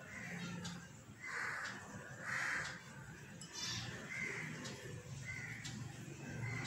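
Crow cawing repeatedly, with two louder caws about one and a half and two and a half seconds in, then weaker ones.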